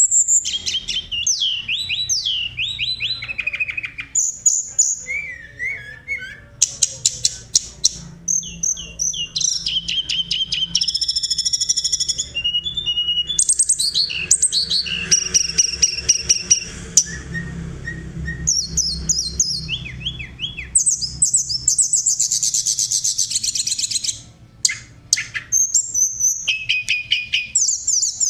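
Tledekan gunung songbird singing a long, varied high-pitched song: quick chirping phrases, falling whistled notes and fast trills, one after another with short pauses.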